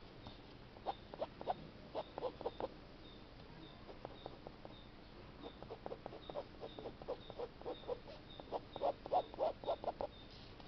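Pen tip scratching on paper in quick short strokes, bunched in bursts, with the densest run near the end.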